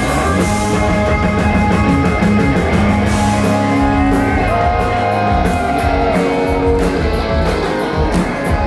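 Pop-rock music from a band with electric guitar, bass and drums, with a steady drum beat.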